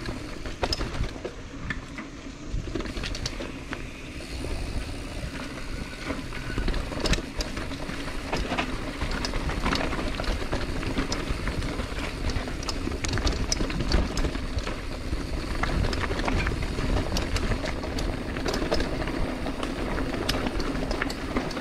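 Mountain bike being ridden on a dirt trail: a steady low rumble from the tyres and ride, with frequent sharp clicks and rattles from the bike.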